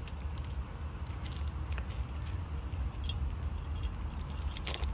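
Kittens crunching dry kibble from a metal plate, with scattered sharp clicks, the strongest near the end, over a steady low rumble.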